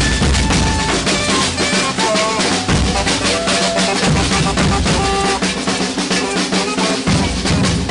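Maracatu percussion ensemble playing: deep bass drums under rapid snare-drum strokes in a dense, steady rhythm. The deep drums drop back for a few seconds midway and return near the end.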